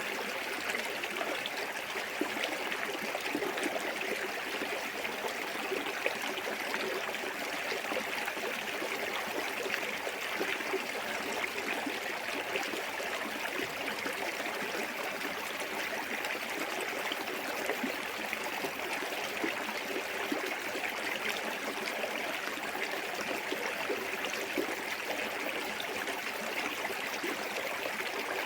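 Small waterfall on a clear forest stream: water running and splashing steadily, a continuous hiss with a bright trickling edge.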